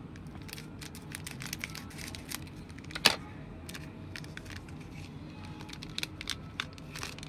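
Scissors cutting open a Panini Impeccable foil trading-card pack: many small clicks and foil crinkles throughout, with one much louder sharp click about three seconds in.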